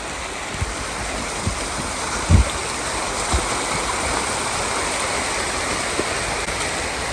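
Steady rush of a river cascade, the water running strong. A few low thumps on the microphone, the loudest about two and a half seconds in.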